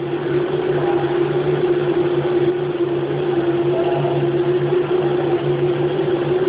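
Haas CNC mill running steadily: a constant hum with a steady whine over a continuous rushing noise.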